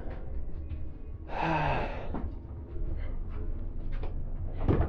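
A man's breathy, voiced sigh about a second in, over a steady low rumble. Near the end there is a short knock as the push panel of a door is pressed.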